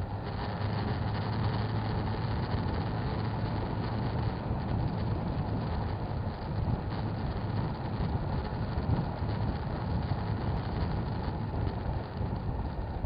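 Motorcycle engine running steadily while riding in traffic, mixed with road and wind noise.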